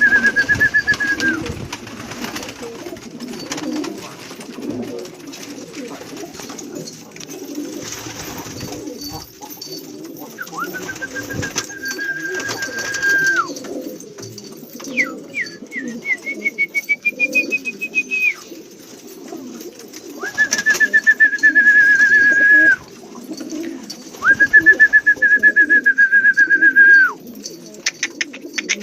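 Domestic pigeons cooing, a steady low murmur throughout. Over them ring several loud, high, steady trills of two to three seconds each, and one rising trill midway.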